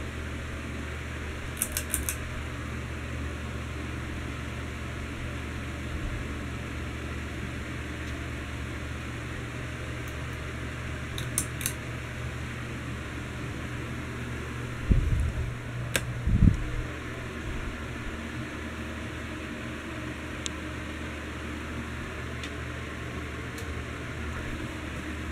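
Heritage ceiling fan running with a steady low hum. A few light clicks sound, and two low thumps about fifteen seconds in are the loudest sounds.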